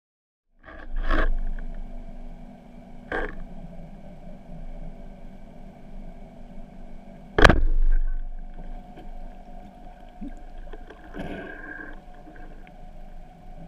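A band-powered speargun fired underwater once, about seven and a half seconds in: a single sharp snap with a short rattle after it, the loudest sound, over a steady underwater hum with a few fainter knocks.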